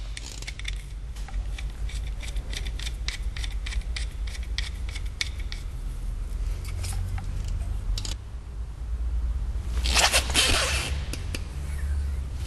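Small clicks and scrapes of tools being handled during work on a tyre valve, with about a second of louder rushing, scraping noise near the end, over a steady low hum.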